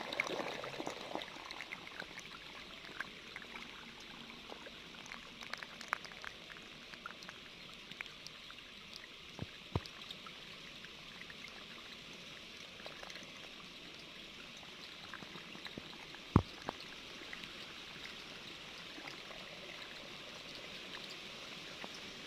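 Aquarium water bubbling and trickling steadily, with scattered small clicks and one sharp tap about sixteen seconds in.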